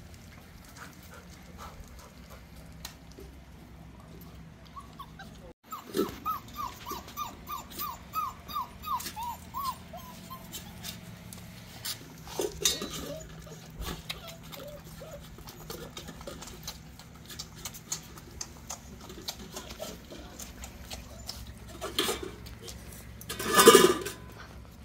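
Weimaraner puppies whimpering: about six seconds in, a quick run of about a dozen short, falling whines, with scattered clicks of feeding at stainless steel bowls. Near the end comes a louder puppy cry.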